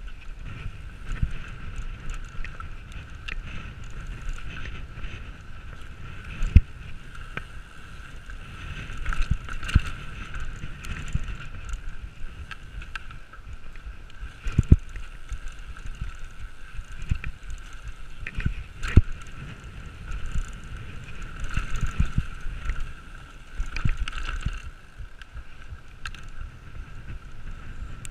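Mountain bike rolling fast over a bumpy grass track: steady tyre and wind rumble on the microphone, a steady high whir, and sharp knocks and rattles as the bike hits bumps, several of them loud.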